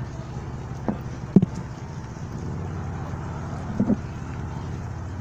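Steady low vehicle rumble, with three brief thumps, the second the loudest.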